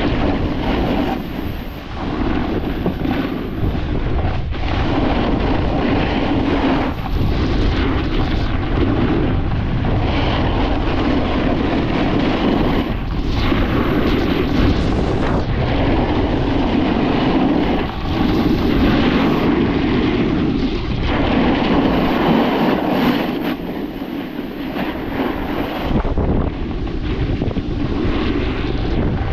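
Snowboard sliding and scraping over firm packed snow at speed, a continuous rough rushing noise mixed with wind buffeting the microphone. The level dips briefly every few seconds as the board changes edge between turns.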